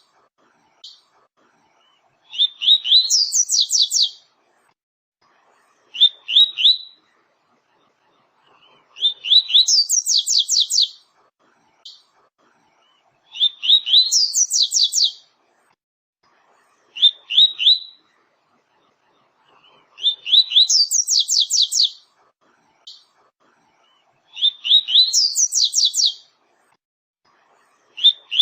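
Double-collared seedeater (coleiro, papa-capim) singing its 'tui-tui' song. Each long phrase opens with a few rising notes and goes into a fast run of high notes, repeating every three to four seconds, with short two- or three-note phrases in between.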